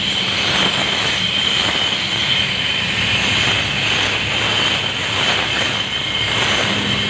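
Pressure washer running steadily, its water jet spraying the fins of an air handling unit's coil to clean it; noisy inside the unit's casing.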